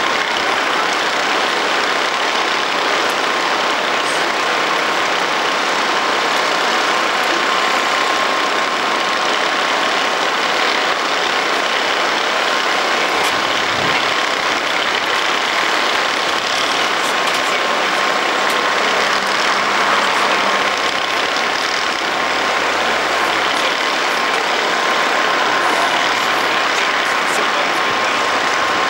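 Steady running of heavy diesel machinery with a constant thin whine, and a few faint clinks past the middle.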